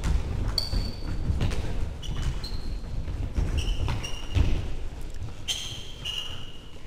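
Indoor football in a sports hall: trainers squeak sharply on the hall floor several times, the longest near the end, among thuds of the ball and running feet, with the echo of the large hall.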